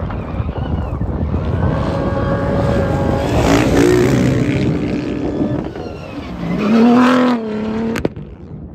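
Off-road rally buggy's engine revving hard as it climbs a sand dune and passes close by, its pitch gliding up and down and loudest near the end before cutting off suddenly.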